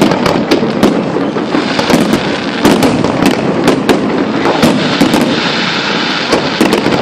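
Fireworks going off in a dense, continuous barrage: many sharp bangs and cracks, several a second, over a steady rumble of overlapping bursts.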